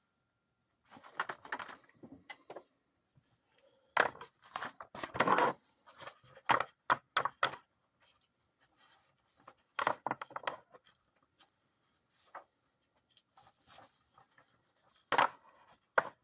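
Objects being handled on a hard surface: irregular knocks, thunks and rustling with quiet gaps, the loudest knocks about four, five, ten and fifteen seconds in.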